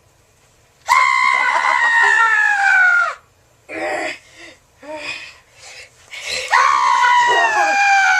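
A person screaming: two long, loud shrieks about two seconds each, falling in pitch, with shorter yelps between them.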